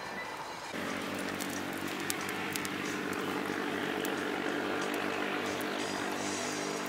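Wood campfire crackling, with scattered sharp pops, over a steady low motor-like drone.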